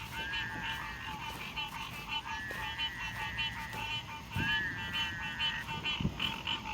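Night pond chorus of toads and frogs calling. Three long trilling calls, each lasting a second or more, sound over a dense, continuous chorus of rapid pulsed calls.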